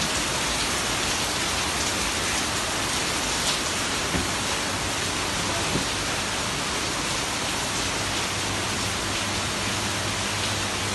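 Heavy rain falling steadily, a dense even hiss of rain on surfaces.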